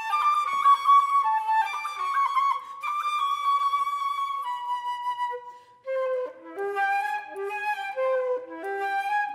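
Unaccompanied concert flute playing a classical solo: a high passage of quick, ornamented notes and a held note, a brief pause about six seconds in, then a melody moving through lower notes.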